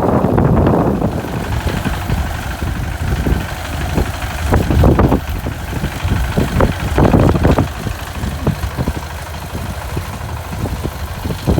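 Small engine of a rice-harvesting machine running steadily, with irregular knocks and rattles through it.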